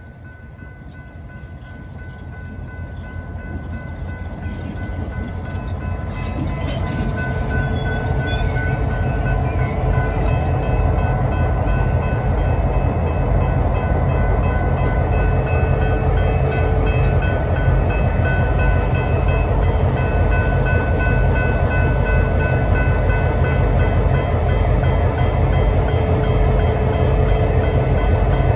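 Diesel-electric locomotives rumbling past a level crossing, growing louder over the first ten seconds and then holding steady. Above the engine rumble the crossing's warning bell rings steadily.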